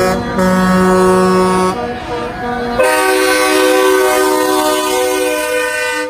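Semi truck's train-style air horn blowing several long blasts at different pitches. The last blast is held about three seconds and cuts off sharply near the end.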